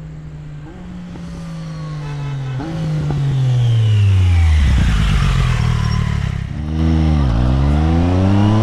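Triumph Street Triple 765 R's inline three-cylinder engine through an Akrapovic carbon-titanium slip-on exhaust, on a fly-by. The engine note grows louder as the bike comes on and falls in pitch as it passes. Near the end it dips briefly, then the note drops and rises again.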